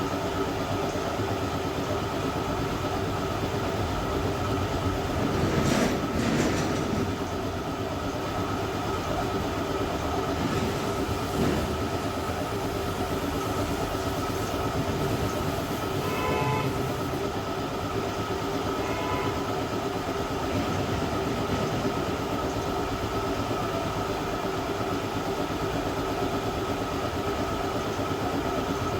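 Hot-air plastic welder running steadily, a continuous blower hum with a steady whine, briefly louder around six seconds in and again near eleven seconds.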